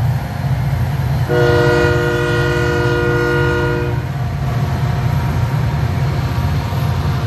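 Diesel locomotive air horn sounding one long chord of a little under three seconds, starting about a second in, over the steady low rumble of six EMD diesel locomotives working hard as they drag a heavy cement train up a grade.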